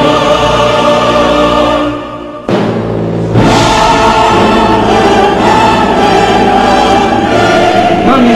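Background choral music with orchestral accompaniment and timpani. It drops away about two seconds in and comes back abruptly half a second later.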